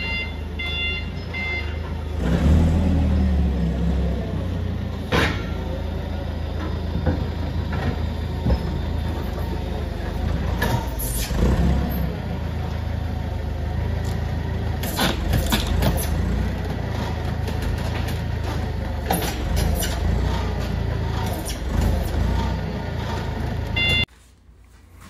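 HELI forklift working at a large plywood crate: its warning beeper pulses for the first couple of seconds over a steady low engine drone, with knocks and clanks of the forks and crate now and then. The sound drops away suddenly near the end.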